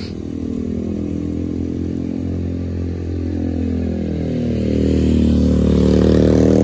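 A motorcycle engine approaching and passing close by, growing louder toward the end, its pitch gliding as it goes past. A steady low engine hum runs underneath.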